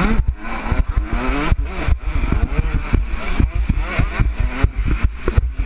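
Motocross bike engine revving hard, its pitch rising and falling through the gears over rough ground, with other dirt bikes close by. Heavy wind buffeting and repeated jolts hit the helmet-mounted microphone.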